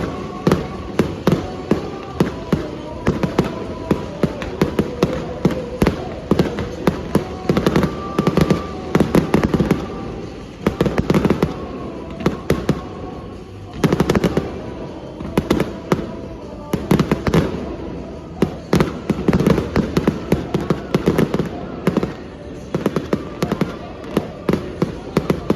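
Fireworks display: rapid clusters of bangs and crackles with short lulls between them, over music.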